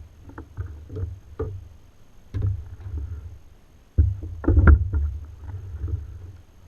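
Knocks and thumps on a sit-on-top plastic kayak hull (Ocean Kayak Trident 13), with low rumbling and scattered sharp clicks. The loudest thump comes suddenly about four seconds in.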